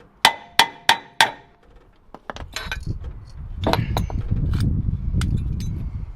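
A hammer strikes metal four times in quick succession, each blow ringing. A low rumbling noise with scattered clicks follows.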